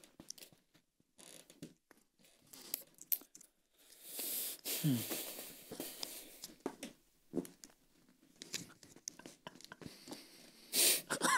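Quiet rustling and crinkling of small folded paper slips being opened and handled, with scattered light clicks.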